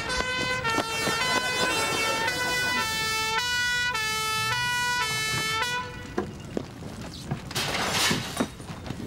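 Two-tone emergency-vehicle siren, of the kind fitted to a fire engine, alternating between a high and a low note, then stopping about six seconds in. A brief hissing rush follows near the end.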